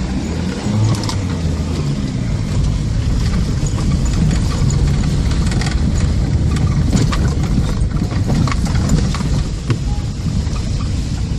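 Road and engine noise heard inside a moving car's cabin: a steady low rumble with scattered small clicks and knocks.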